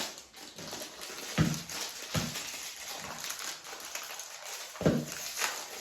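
Chocolate chips pattering into a mixing bowl of cookie dough, with a few dull knocks against the bowl.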